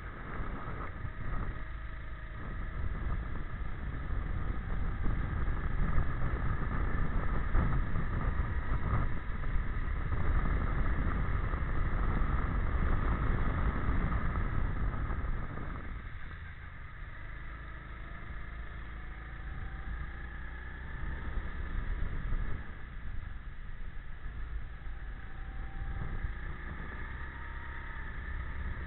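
Go-kart engine running at speed, heard from on board, with a heavy low rumble over it for the first half. About halfway through the rumble drops and the engine note rises in long glides, twice, as the kart accelerates.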